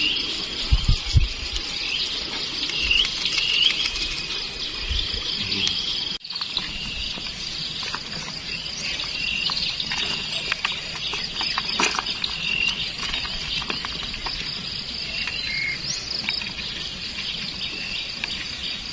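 Insects drone steadily, with short bird chirps scattered through it. Light clicks and rustles come from the mesh shrimp trap being handled and shaken out over a bucket.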